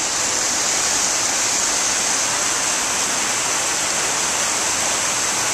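Steady, even hiss with no changes, strongest in the high range.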